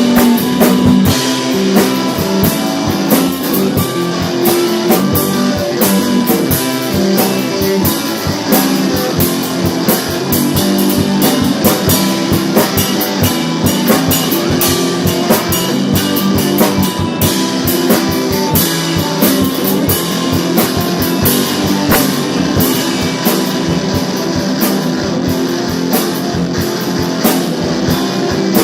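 Rock band playing an instrumental passage: guitar over a drum kit keeping a steady beat, with no singing.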